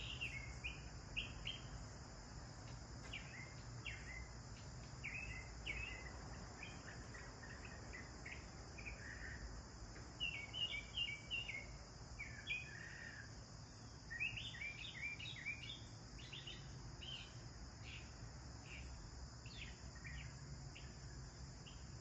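House sparrows chirping: many short, repeated chirps in irregular bursts, busiest about ten seconds in and again around fifteen seconds, over a steady high buzz.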